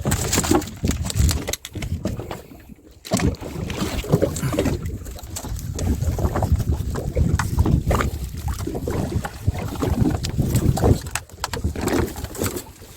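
Wind buffeting the microphone and sea noise around a small open fishing boat, with scattered knocks and handling bumps.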